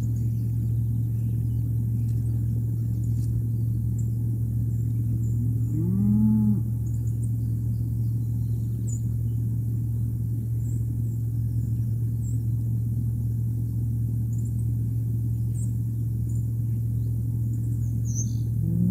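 A steady low hum under one low, drawn-out animal call about six seconds in, lasting about a second and rising then falling in pitch, with faint high chirps here and there.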